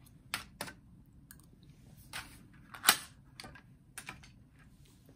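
Metal spoon clicking and scraping against a plastic yogurt pot in a series of short, separate clicks, the loudest about three seconds in.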